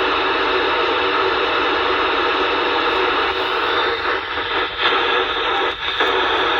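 PMR446 handheld radio's speaker hissing with loud steady static as the squelch opens on a weak station that is only just breaking through, with a brief dropout about six seconds in.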